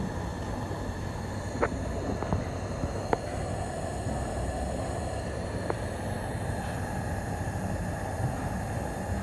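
Coleman Model 200 white-gas pressure lantern burning with a steady rushing hiss from its pressurised burner. A few light metal clicks and knocks come as the lantern is handled and tilted.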